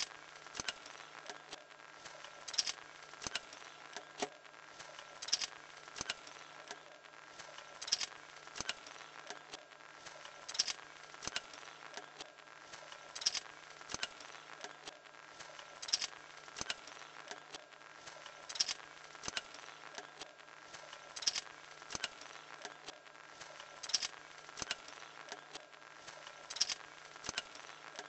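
Small motor-driven drawing machine with a wooden-stick linkage running: a faint steady motor hum under constant light clicking and rattling of the joints, with a louder burst of clicks coming back about every two and a half to three seconds.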